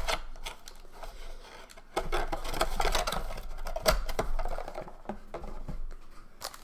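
Packaging of a Donruss trading-card blaster box being handled: crinkling and scratchy rustling with sharp clicks, as the box is opened and a foil pack taken out, the loudest click about four seconds in.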